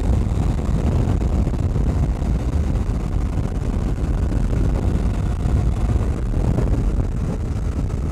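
Wind rushing over a helmet microphone on a KTM 790 Adventure accelerating away. The motorcycle's parallel-twin engine is faint beneath the wind, rising in pitch as it is upshifted with the quickshifter.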